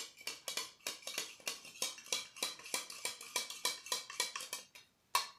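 A spoon stirring borax powder into lukewarm water in a clear cup, clinking against the cup's sides about four to five times a second to dissolve it. The stirring stops near the end with one last clink.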